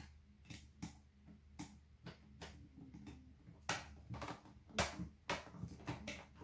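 Scattered clicks and light knocks, about a dozen at uneven intervals, from a screwdriver and hands working a gel blaster's nylon buffer tube loose.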